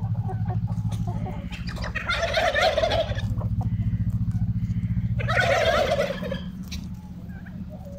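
Two loud, rattling poultry calls, about two and five seconds in, each lasting about a second, from a flock of laying hens. A steady low hum runs underneath.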